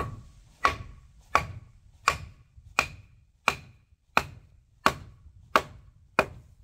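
Wooden mallet knocking a round log rung into the side rail of a log ladder: about ten wood-on-wood blows at an even pace, a little over one a second, each with a short hollow ring.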